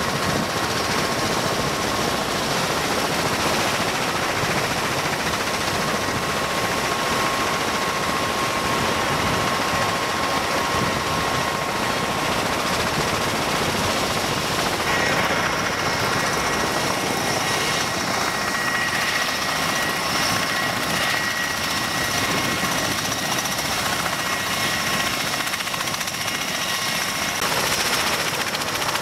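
MV-22 Osprey tiltrotor running on the ground with its rotors turning: a steady rush of rotor and engine noise with a high turbine whine. The whine's pitch changes about halfway through.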